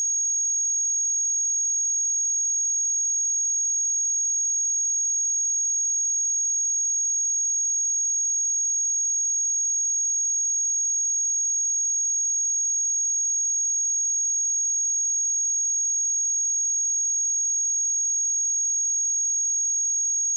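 A steady, high-pitched 6585 Hz sine-wave test tone, one pure tone held at constant level.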